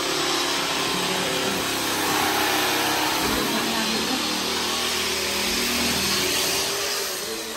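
A small motor running steadily with a whirring noise, easing slightly near the end.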